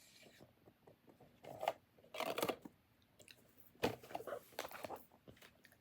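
Blind-box packaging being handled and opened, with short bursts of rustling and crinkling.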